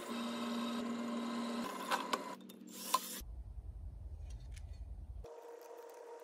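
Drill press motor running steadily while drilling holes through a metal plate, a pitched hum that breaks off about two seconds in. A few clicks and a sharp tap follow near the three-second mark, then only a quiet low hum.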